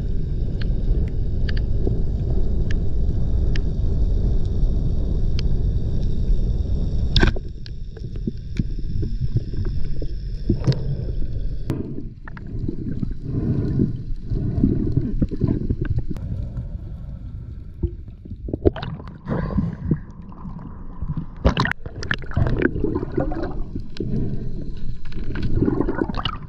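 Underwater sound through an action camera's housing: a steady low rumble with faint high steady whines, which stops at a sharp click about seven seconds in. After that come irregular knocks, rustles and water movement as a speared fish is hauled in on its line and handled.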